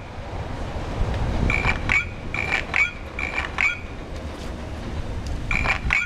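Car alarm sounds from a sound-art car alarm system: short chirping alarm tones repeating about once a second, three in a row in the middle and another near the end, over a low rumbling noise.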